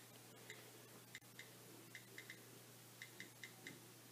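Faint, irregular clicks of a touchscreen keyboard on an Apple device as an email and password are typed in, a few taps at a time.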